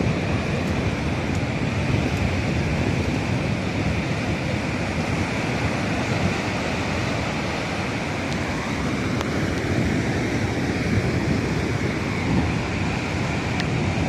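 Caspian Sea surf, a steady rushing of waves, with wind buffeting the microphone.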